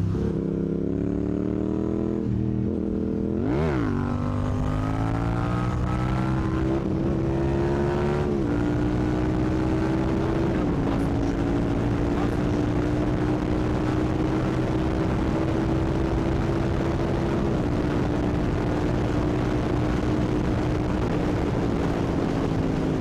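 Yamaha MT-07's parallel-twin engine running under way through an exhaust with its baffle plug removed. Its pitch climbs over the first eight seconds or so as the bike gathers speed, then holds nearly steady at cruising speed.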